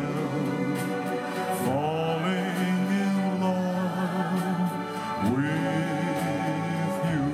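A man singing into a handheld microphone over instrumental backing music, holding long notes, with new phrases starting about two and about five seconds in.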